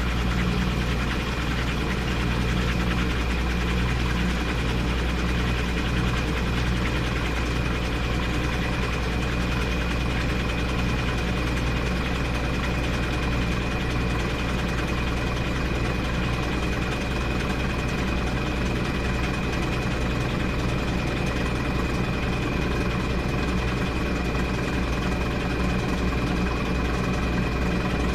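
Washing machine running steadily mid-cycle: a constant motor hum with a thin, steady high whine.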